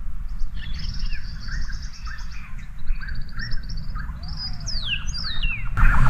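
A meadowlark singing: a run of short chirps and buzzy trills, then a few clear whistles sliding downward near the end. Just before the end the sound turns suddenly louder, with a fast rattle.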